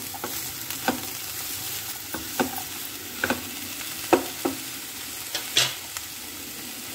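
Diced watermelon rind sizzling in a non-stick frying pan while a wooden spatula stirs it: a steady frying hiss with irregular knocks and scrapes of the spatula against the pan, the loudest about four seconds in.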